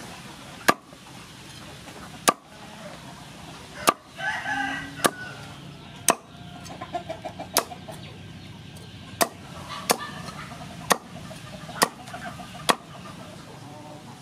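A cleaver chopping crispy fried pork belly on a wooden cutting board: sharp chops through the crisp skin, about one a second. A chicken clucks briefly in the background about four seconds in.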